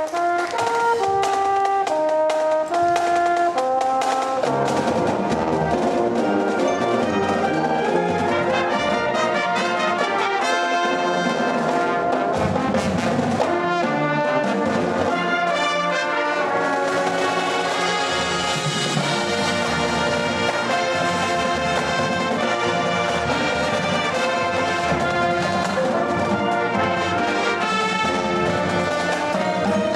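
Marching band playing a march. A few held brass notes step through a short phrase, then the full band with low brass and drums comes in about four seconds in.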